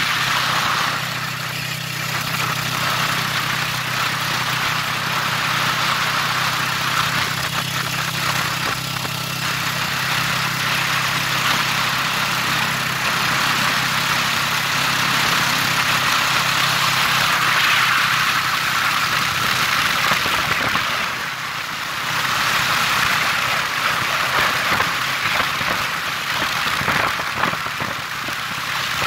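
Motorcycle engine running steadily under way, heard from the seat, mixed with steady rush of wind and road noise; the sound drops briefly about three quarters of the way through.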